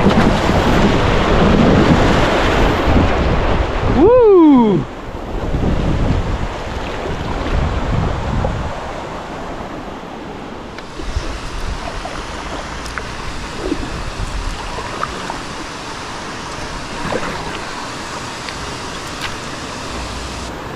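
Wind on the microphone and water sounds from a kayak paddling down a river, loudest in the first four seconds. About four seconds in comes one short falling squeal, then the wind and water go on more quietly with a few faint high chirps.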